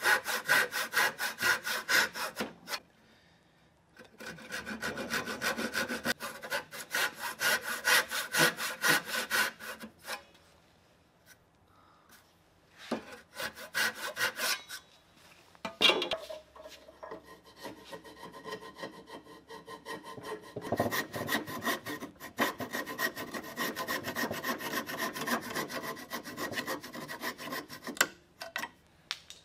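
Hand saw cutting walnut in quick, even strokes, stopping twice in the first ten seconds. A sharp knock comes near the middle, and then a thin-bladed saw cuts across the walnut with a steady run of duller strokes until near the end.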